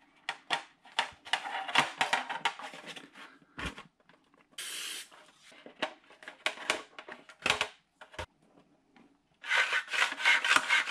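Hollow 3D-printed plastic wing sections handled and pushed together over cardboard and a carbon wing spar: irregular rubbing, scraping and light knocks of plastic. There is a short hiss about halfway through and a denser spell of scraping near the end.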